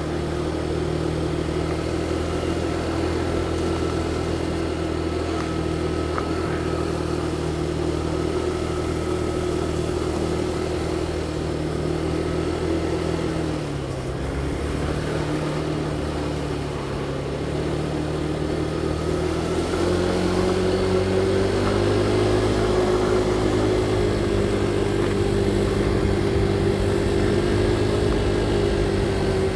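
Motorcycle engine running as the bike rides along, picked up by a helmet-mounted mic. The engine note holds steady, drops lower about halfway through, then rises and gets louder for the last third.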